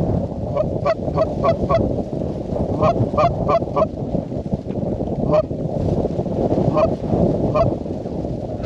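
Geese honking, about a dozen short honks bunched in the first few seconds and then spaced out, over steady low wind noise on the microphone.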